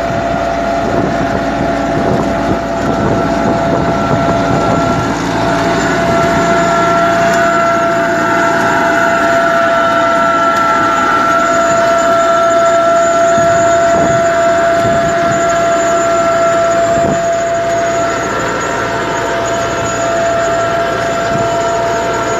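Tractor engine running steadily while pulling a precision seed drill sowing faba beans, with a steady high whine over it, typical of the drill's vacuum fan.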